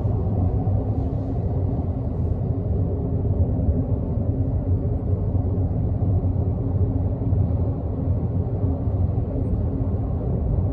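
Steady road and engine rumble inside the cabin of a Honda N-WGN kei car with a 660 cc three-cylinder engine, cruising at about 60 km/h.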